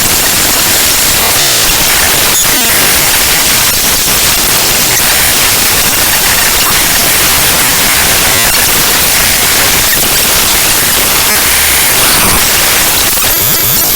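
Loud, harsh static: the raw bytes of a DLL's compiled code played back directly as audio samples, giving steady hiss with faint crackles.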